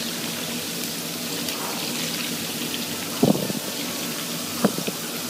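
Steady rush of water running into an ice-filled bathtub, with two short, louder noises about three and four and a half seconds in.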